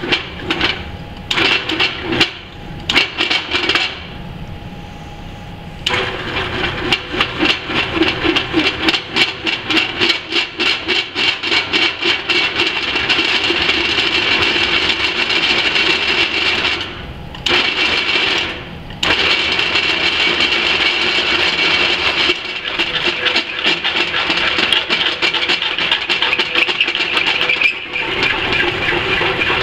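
Drill press boring through thick steel plate with an inch-and-a-quarter twist drill whose tip looks worn: a fast chattering rattle with a high ringing tone as the bit cuts. The cut eases off for a couple of seconds about four seconds in, and twice more briefly about two-thirds through.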